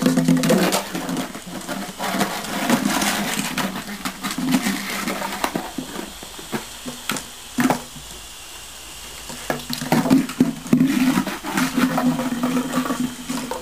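Border collie puppies growling as they play-fight, a low held growl near the start and again from about ten seconds in, with paws splashing and scrabbling on wet paving.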